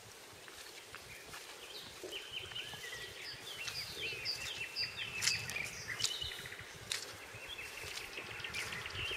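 Songbirds singing, a steady run of short chirps and whistled notes over a low outdoor background hush, with a few faint clicks in the second half.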